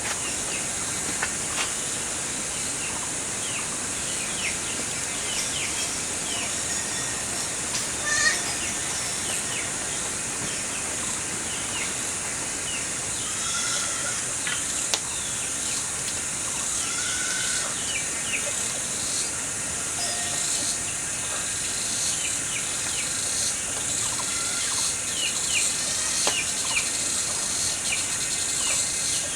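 Countryside ambience: a steady high-pitched drone of insects, with many short bird chirps scattered through it.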